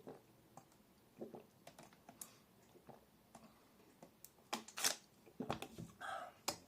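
A person drinking from a bottle of sports drink: faint handling clicks and sips, with a few louder noises in the second half as he swallows and breathes out.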